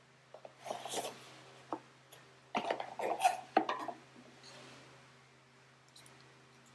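Unboxing handling noises: cardboard packaging and its contents being rubbed, rustled and set down, with a few light knocks and clicks. The busiest stretch comes around the middle.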